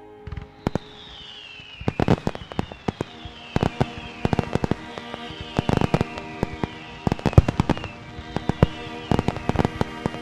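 Fireworks going off in rapid clusters of sharp bangs and crackles over background music, with a falling whistle that repeats about every second and a half.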